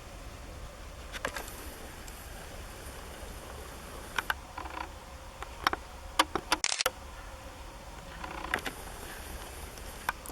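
Faint buzz of chainsaws felling trees at a distance, under a steady low rumble. A handful of sharp clicks and knocks stand out at intervals, the loudest cluster about six seconds in.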